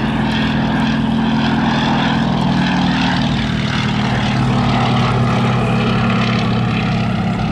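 Fairey Swordfish biplane's Bristol Pegasus radial engine and propeller running steadily as it flies past, a loud, even drone.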